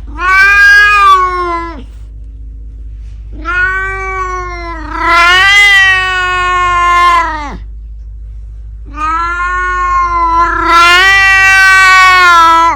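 Elderly domestic cat yowling in three long, drawn-out meows: a short one, then two of about four seconds each.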